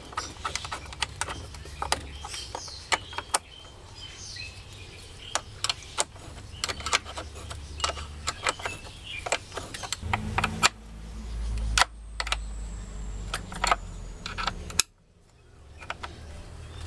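Repeated metallic clicks and clinks of a wrench and threaded pipe union being worked as the outlet pipe is fitted to an automatic water pump, with birds chirping behind. A low rumble rises in the middle, and everything cuts off suddenly about fifteen seconds in before starting again.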